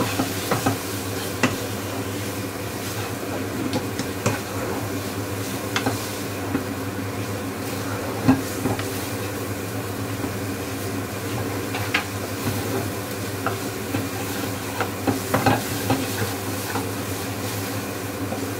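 A spatula stirring and scraping onion paste and ground spices as they fry in oil in a pan over a low flame, with a low sizzle and scattered sharp taps of the spatula on the pan. A steady low hum runs underneath.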